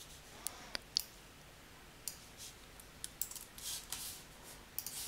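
Faint, irregular clicks of a computer mouse and keyboard, a dozen or so scattered over a few seconds, some of them short rustling smears.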